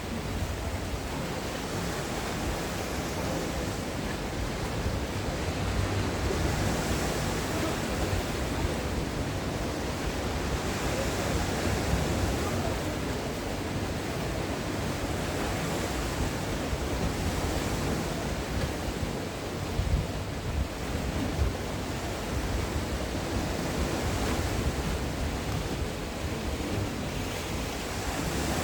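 Sea waves breaking on the shore: a steady wash of surf that swells and eases every few seconds.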